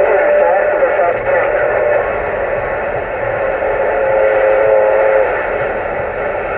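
Uniden Grant XL CB radio's speaker hissing with band static, with faint wavering whistles laid over it, the sound of a receiver open on a busy, crowded channel.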